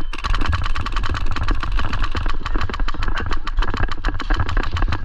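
Airsoft electric gun firing full-auto in a long, continuous string of sharp shots at about ten a second, over a heavy low rumble of wind and handling noise on the microphone.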